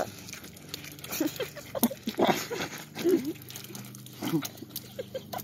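Two people gobbling watermelon as fast as they can: irregular wet, crunching bites and slurps, with short muffled voice noises made through full mouths.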